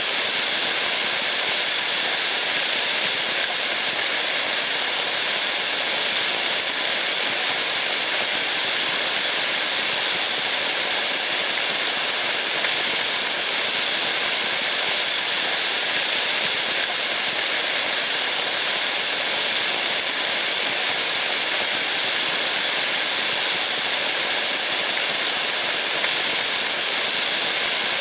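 Steady rain falling, an even high hiss without distinct drops or changes.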